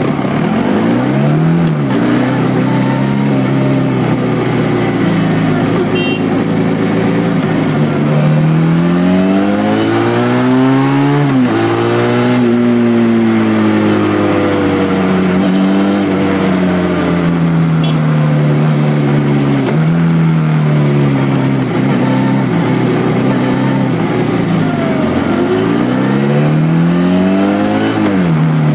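Benelli 302R's 300 cc parallel-twin engine heard through its exhaust while riding, the revs rising and falling with the throttle. Several climbs end in a sudden drop at a gear change, and there are long spells of slowly falling revs as the bike rolls off the throttle.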